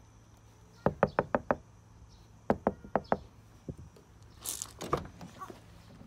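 Knuckles rapping on a car's window glass: two quick runs of about five knocks each, about a second and a half apart, then one more knock.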